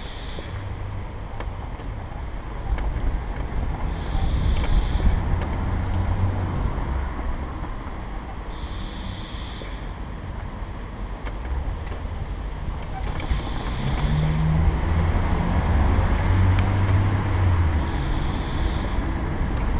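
Steady low rumble of wheels rolling over a tarmac path, mixed with wind buffeting the camera's microphone. A brief high hiss comes back about every four and a half seconds.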